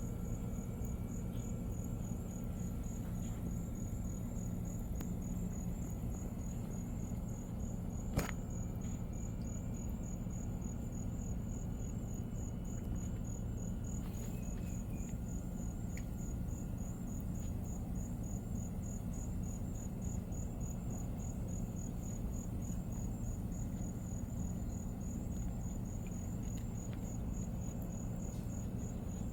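Cricket chirping steadily, a high-pitched, evenly pulsing trill, over a low steady rumble. A single sharp click about eight seconds in.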